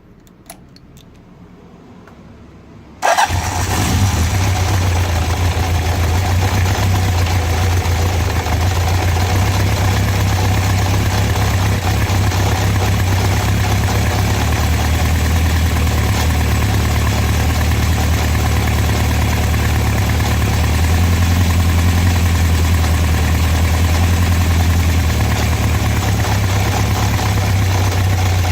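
Honda CB750 inline-four motorcycle engine: after a few faint clicks it starts about three seconds in and then idles steadily, carrying a rattle from inside the engine that the owner calls unhealthy.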